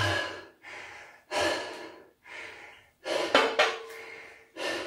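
A man breathing hard through the mouth from the exertion of repeated squats: quick, even in-and-out breaths about one a second, the loudest one partly voiced about three seconds in.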